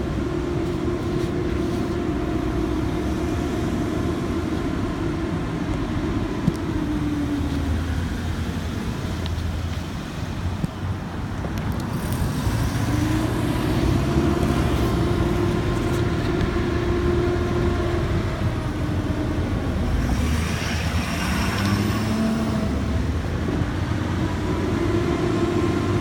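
Road traffic and engine noise: a steady droning hum that sags in pitch and comes back up twice, over a constant rumble of vehicles.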